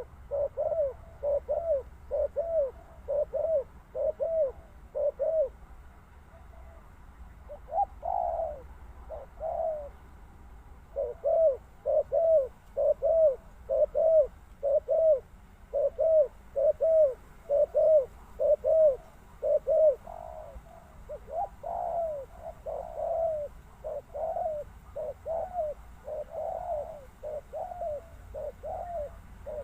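Spotted dove cooing: runs of short, low coos, about two a second, broken by brief pauses.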